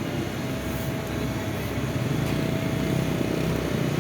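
Heavy asphalt-paving machinery's diesel engine running steadily, a low continuous drone with a faint steady whine above it.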